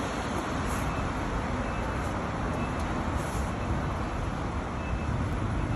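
Suzuki GSX-R1000R's inline-four engine idling steadily through a one-off twin-outlet exhaust made as a copy of the GSX-RR race muffler.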